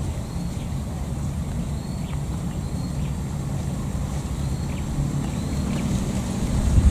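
Steady low rumbling noise that swells near the end, with faint short high chirps about once a second.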